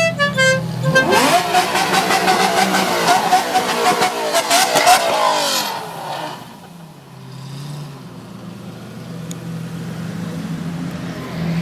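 Custom-exhaust Lamborghini supercars revved hard, engine note sweeping up and down with sharp exhaust crackles. A horn sounds a few pitched notes in the first second. About halfway through, the sound drops to a lower, steadier engine note, and revving picks up again near the end.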